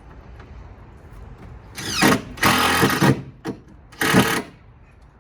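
Power drill running in three short bursts, the first starting with a rising whine as the motor spins up.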